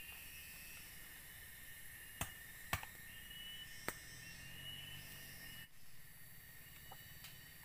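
Faint forest ambience: insects droning steadily at a high pitch over a soft hiss, with three sharp clicks about two to four seconds in.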